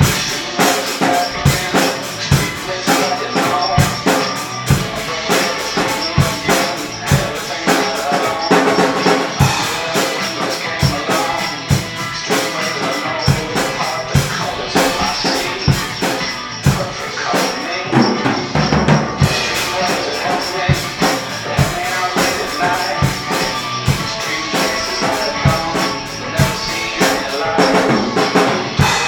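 Acoustic drum kit played in a steady funk groove, with bass drum, snare and cymbal strikes, over backing music.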